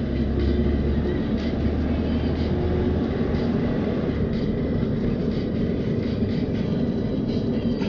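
A car driving along a road: steady engine and tyre noise, low and continuous.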